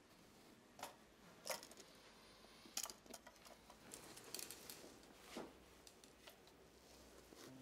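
Near silence: quiet room tone with a few faint, scattered clicks and rustles.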